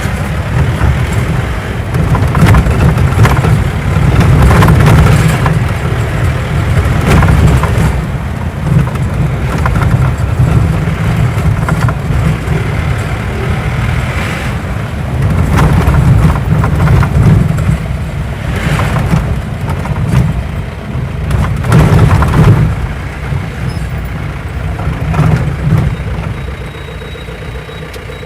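A motor vehicle running, a heavy uneven rumble that swells and eases every second or two.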